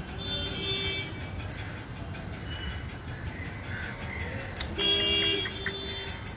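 Vehicle horns honking: a short honk near the start and a louder, steady honk for about half a second around five seconds in, over a steady background hum.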